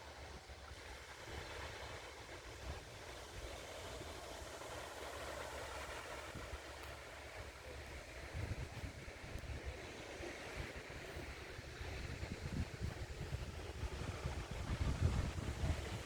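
Sea waves washing, with wind buffeting the microphone; the low gusts grow stronger about halfway through and are strongest near the end.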